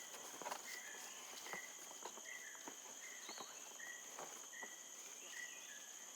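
Faint forest ambience: a steady high insect drone, with a short high call repeating about once a second and a few soft clicks and rustles.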